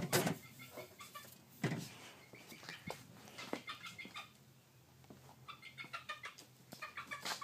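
Pet chicken clucking softly: a run of short, quick clucks starting about two-thirds of the way in, after a few knocks and rustles from the phone being handled.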